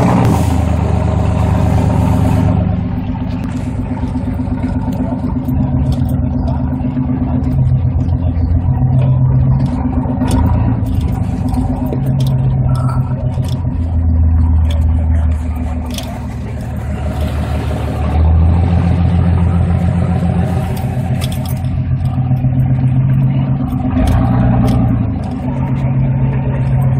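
Motor vehicle engine running under varying throttle, its pitch rising and falling every few seconds as it revs up and settles, with a few sharp knocks or clatters.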